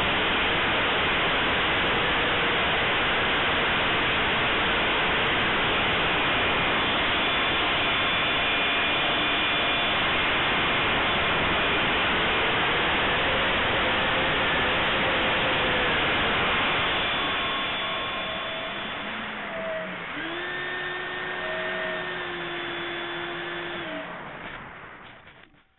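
Electric ducted fan of a Durafly de Havilland Vampire 70 mm RC jet, heard from its onboard camera in flight: a loud steady rush of fan and passing air with a faint whine. About two-thirds of the way through the throttle comes back, the rush drops and the fan's whine stands out more clearly, then the sound fades away near the end.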